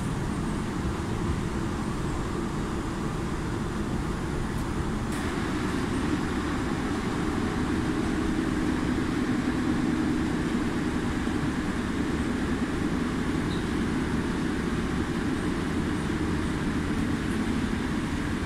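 A passenger train running along the track, heard from inside the carriage: a steady low rumble that swells slightly around the middle.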